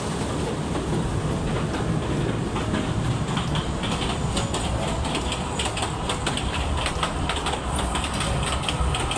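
Kurobe Gorge Railway trolley train running on its narrow-gauge track: a steady low rumble with quick clicking and rattling from the wheels, which grows busier from about three seconds in.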